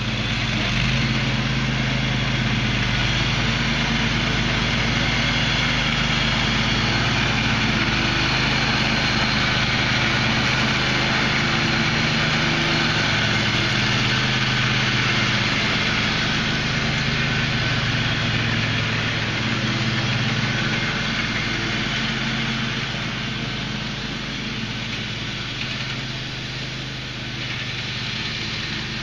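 Engine of a Husky 22 HP riding lawn mower running steadily, picking up a little about a second in and easing off slightly near the end.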